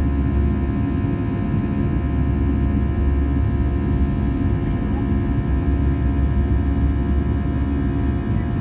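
Airbus A320 cabin noise during the climb after takeoff: a steady engine drone with a strong low rumble and several steady whining tones, heard from inside the cabin over the wing.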